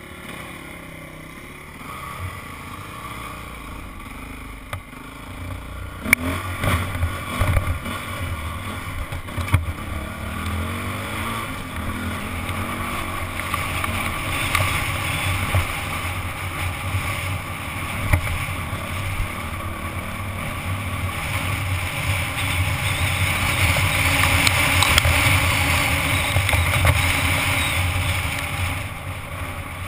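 Single-cylinder four-stroke Honda CRF dirt bike engine running under a helmet camera as the bike pulls away and climbs over rock. It is quieter at first, gets louder about six seconds in with a few sharp knocks, and is loudest near the end.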